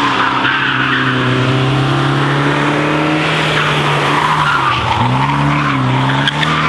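Mk1 Volkswagen Golf race car cornering hard with its tyres squealing. The engine note holds steady, dips about five seconds in, then climbs again as it pulls away.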